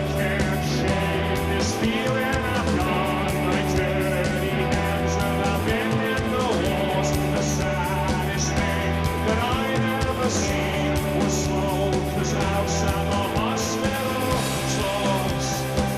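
Rock music: a band with guitars and drums playing.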